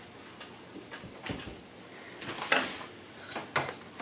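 A few short clicks and knocks from the small pieces of a pop-apart outhouse toy being handled and set back in place, the loudest about two and a half seconds in.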